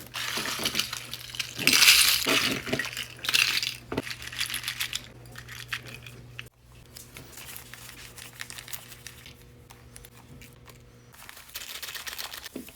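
Dozens of googly eyes on a paper bag book rattling as the book is shaken and moved: a dense patter of tiny plastic clicks, loudest in the first few seconds, quieter through the middle and picking up again near the end.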